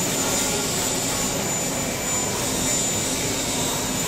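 Steady, even background roar of an enclosed underground car park and workshop, with no single sound standing out.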